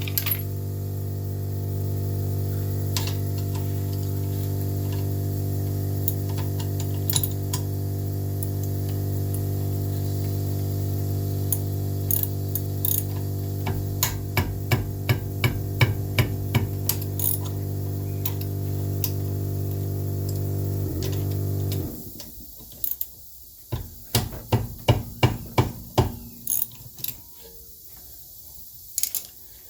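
Socket ratchet clicking in two short runs as the 14mm brake caliper bolts are worked loose. Under it, a steady machine hum cuts off suddenly about three quarters of the way through.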